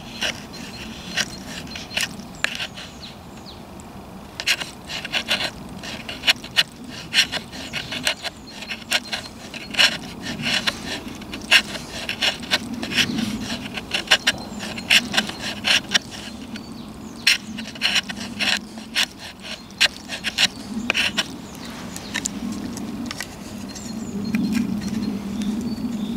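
Large knife blade scraping a stick of resin-soaked pine fatwood in a long series of short, dry strokes, about one or two a second, shaving off fine curls for tinder.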